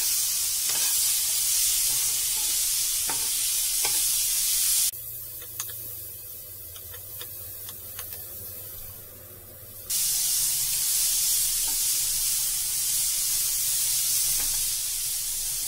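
Sweet corn kernels sizzling as they fry in olive oil in a non-stick pan, stirred with a steel spoon that scrapes and clicks against the pan. The sizzle cuts out abruptly about five seconds in and comes back about five seconds later, leaving only quieter spoon strokes in between.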